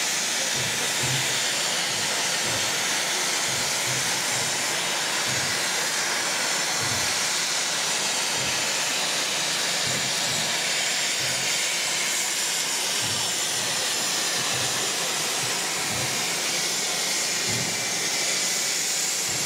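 Steady hiss of steam escaping from the front end of the LNWR 'Coal Tank' 0-6-2T steam locomotive 58926, with irregular low rumbles underneath.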